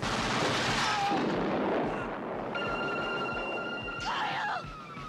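Action-film sound effects: a sudden loud blast with a rushing noise that dies away over about two seconds. Then a steady high tone sets in about two and a half seconds in, and squealing sliding sounds come near the end.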